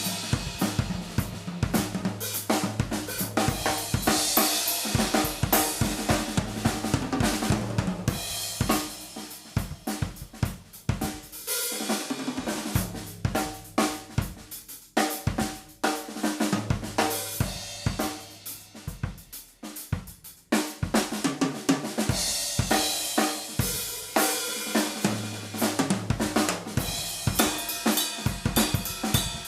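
Yamaha Stage Custom Birch Bebop drum kit played: bass drum, snare, hi-hat and cymbals in a continuous groove, with softer stretches about ten and eighteen seconds in.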